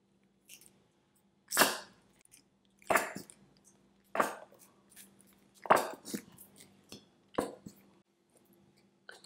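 Plastic squeeze bottle of mayonnaise squeezed into a glass bowl: five short squirts about a second and a half apart, each starting sharply and fading within half a second.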